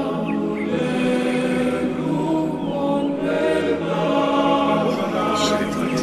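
Choral singing: several voices holding sustained, chant-like notes together.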